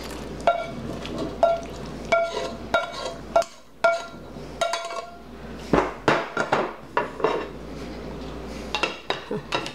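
Spoon knocking and scraping against cooking pots, a series of ringing metallic clinks, as egg noodles are knocked out of one pan into a pot of Alfredo sauce and stirred in.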